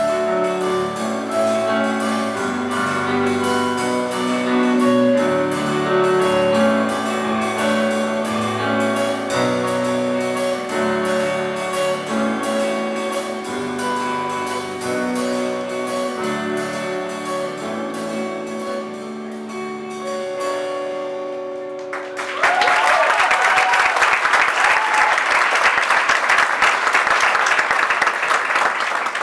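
Live worship band playing the song's closing instrumental bars: sustained keyboard chords over a steady drum pulse. About 22 seconds in the music ends and the audience breaks into loud applause and cheering.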